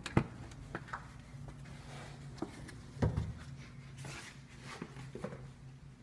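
Scattered short knocks and clicks from a person walking in through an opened door while handling the camera, the sharpest right at the start and another about three seconds in. A low steady hum runs underneath.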